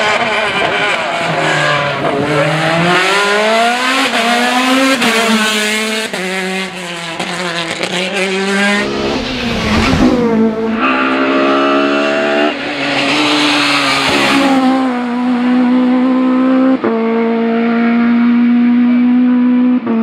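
Race car engines at full throttle, climbing in pitch through several gear changes, with a loud rush as a car passes close about halfway through. A steady high-revving engine note follows near the end.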